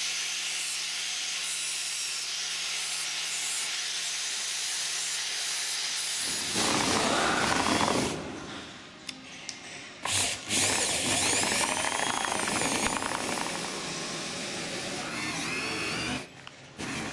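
Power sanding on the metal parts of a Honda air-conditioner compressor clutch, resurfacing them. First a rotary sanding disc rubs on metal with a steady hiss. About six seconds in it gives way to a louder electric drill, its motor speed rising and falling, which stops shortly before the end.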